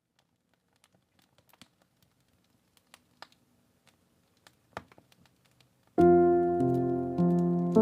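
Faint fireplace crackling, a scatter of small pops and one louder snap, then about six seconds in soft piano music comes in with sustained chords, changing about every half second to second.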